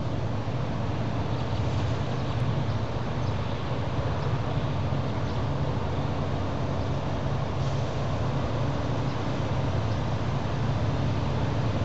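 Diesel locomotives of an approaching Union Pacific freight train, a steady low engine rumble that grows slightly louder near the end as the train draws closer.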